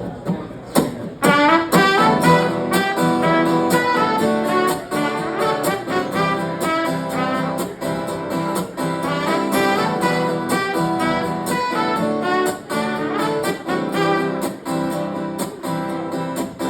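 Live band playing an instrumental intro: a trumpet-like brass melody over steady, rhythmic strummed acoustic guitar. A few strums come alone, and the brass comes in about a second in.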